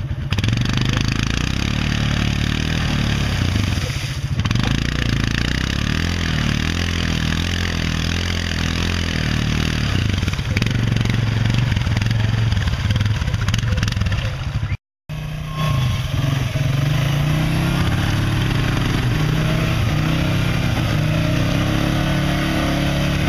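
Yamaha Grizzly ATV engine running under load as its tyres spin and throw mud in a deep rut. After a brief dropout about two-thirds of the way through, a Polaris ATV engine runs as it churns through mud.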